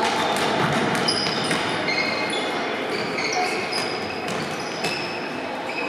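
Indoor football game in a sports hall: players' shoes squeak briefly and repeatedly on the court floor and the ball is kicked now and then, over an echoing hall din.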